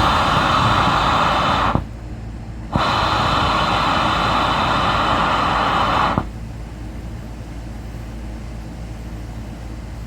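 Dry nitrogen blown under pressure through a clogged dryer vent duct: a loud rush of air that stops for about a second, starts again for a few seconds, then cuts off, leaving a lower steady rumble.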